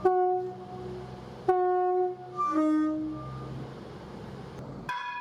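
Train's two-tone horn sounding: a short high note, then after a pause a longer high note dropping straight to a low note, over a steady low rumble. Near the end a different, higher-pitched horn note starts suddenly.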